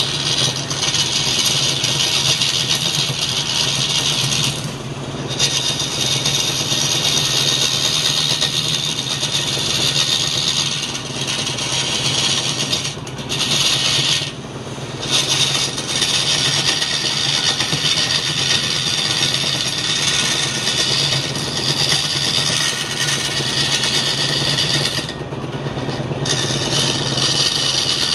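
Turning gouge cutting into a large wooden blank spinning on a lathe: a continuous rough scraping of wood being peeled into chips, over the steady hum of the lathe's motor. The cut drops out briefly about four times as the tool eases off the wood.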